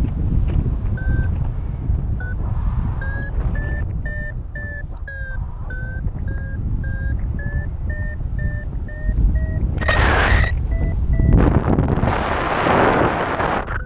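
Paragliding variometer beeping in short tones about two a second, the pitch rising gradually as it signals climbing in lift. Wind rushes over the microphone throughout and gusts louder about ten seconds in and again near the end.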